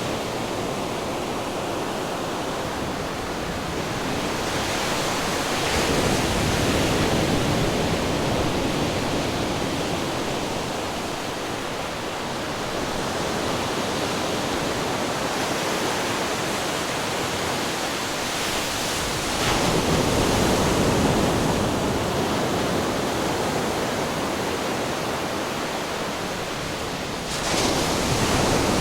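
Ocean waves breaking against rocks: a continuous rush of surf, with a wave surging in about five seconds in, another near twenty seconds, and a more sudden crash near the end.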